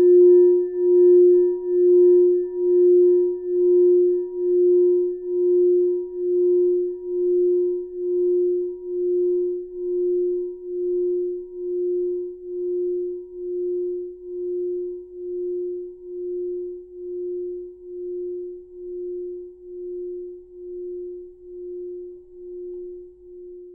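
A singing bowl ringing on one long steady note, pulsing in a slow wobble about once a second and slowly fading. Its faint higher overtones die away first.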